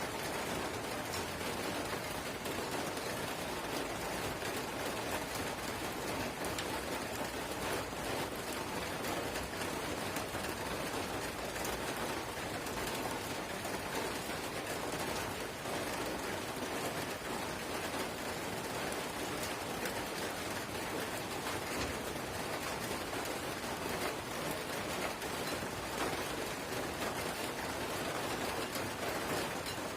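Steady drizzle: light rain pattering continuously on surfaces, an even hiss with many tiny drop ticks.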